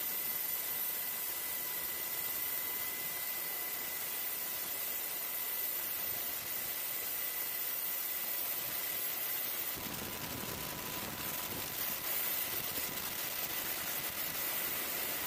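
Steady, even hiss of a hovering UH-60 Black Hawk helicopter as picked up on board, with a faint steady high tone. About ten seconds in the tone stops and a deeper rushing noise joins the hiss.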